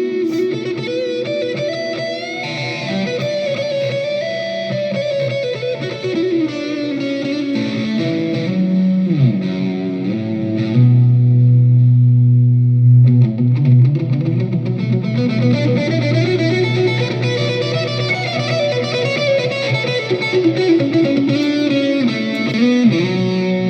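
Electric guitar played through a Donner Arena 2000 multi-effects processor and out of PA speakers, noodling single-note runs on an effects preset. A low note held about halfway through is the loudest part.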